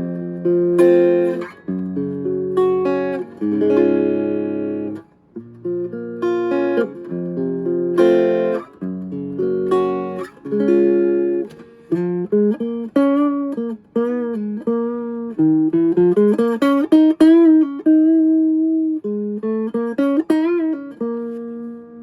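Vintage Silvertone hollowbody electric guitar played clean with no effects: strummed chords in the first half, then single-note lines with sliding, wavering pitch in the second half.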